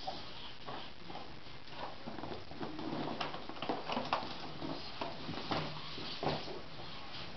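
Redcat Rockslide RC rock crawler clambering over other RC trucks: irregular knocks and clatter of its tires and chassis against their bodies and frames, busiest in the middle few seconds.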